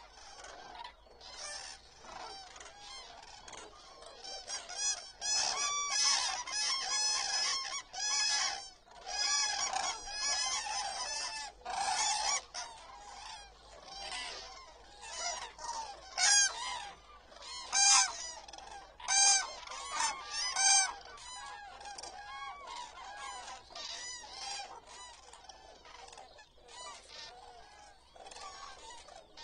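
A large flock of common cranes calling: many trumpeting calls overlapping, densest through the middle, then a few single loud calls standing out before the calling thins out near the end.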